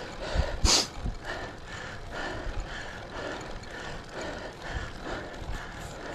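Road bike climbing, heard from the rider's camera: steady wind noise on the microphone with a regular pulsing about twice a second, and a short sharp rush of air about a second in.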